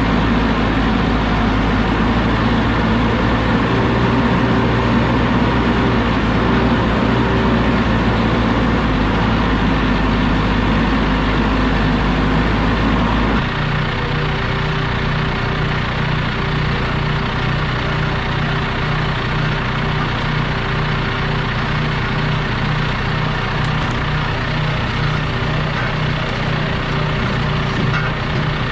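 Backhoe's diesel engine running steadily. About halfway through the sound shifts abruptly and the deep rumble drops away.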